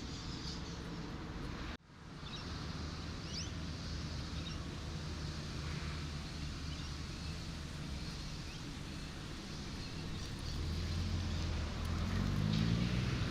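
Road traffic: a steady rush of passing cars with a low engine hum, growing louder near the end as a vehicle draws close and its engine tone bends upward. The sound cuts out for a moment about two seconds in.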